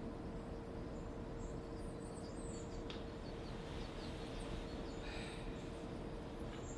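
Faint, scattered high bird chirps over a steady low hum with a constant droning tone, and a single click about three seconds in.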